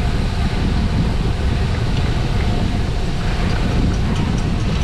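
Steady wind buffeting the microphone at riding speed: a constant low rumble with a hiss above it.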